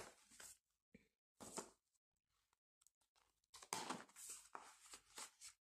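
Near silence broken by faint rustling of plastic binder sleeves and paper pages being handled and turned, with more of it from about three and a half seconds in.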